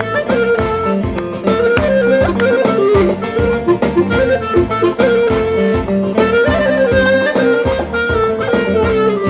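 Clarinet playing an ornamented, winding melody over an arranger-keyboard backing with a steady beat: the instrumental introduction of a pop song.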